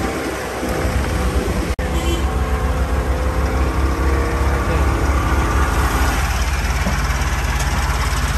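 An engine idling steadily, a low even rumble, with a momentary break about two seconds in.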